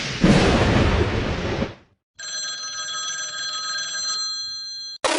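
A loud burst of noise for just under two seconds, fading at its end; then, after a brief silence, a steady electronic ringing tone made of several high pitches held together for about three seconds, which cuts off suddenly.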